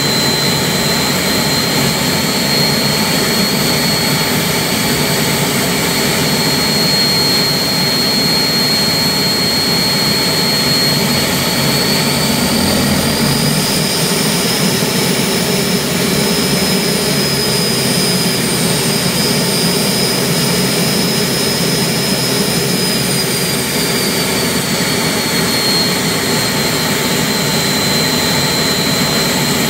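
Turbomeca gas turbine engine running on a ground-test run: a loud, steady high whine over a rumble. The whine rises in pitch about twelve seconds in, holds there for about ten seconds, then falls back to its earlier pitch.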